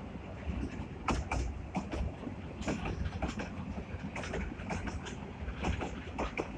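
Freight train's goods wagons rolling past at slow speed: a steady low rumble of wheels on rail, with irregular clanks and clicks from wheels and wagon bodies.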